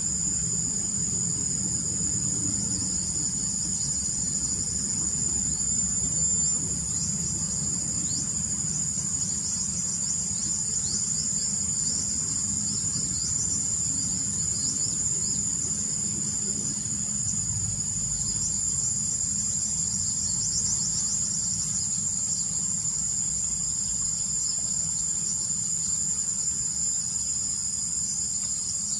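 Steady high-pitched insect chorus, with several insects holding continuous shrill tones and quick short chirps over them in the middle part, above a low rumble.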